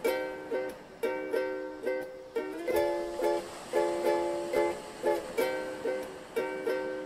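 Background music: plucked-string chords strummed in a steady rhythm.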